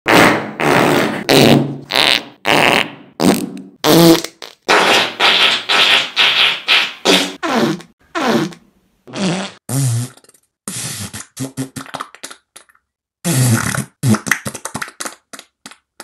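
A rapid string of fart sound effects, one blast after another, several sliding down in pitch. From about halfway they become shorter, sputtering bursts with gaps between them.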